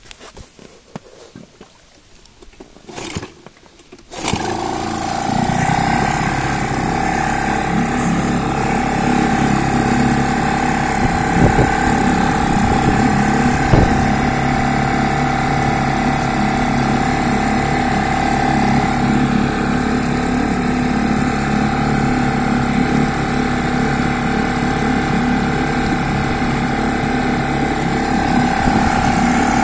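Fisher 2.5 hp outboard motor catching and starting suddenly about four seconds in, then running steadily at an even speed while being run in. A few faint rustles and knocks come before it starts.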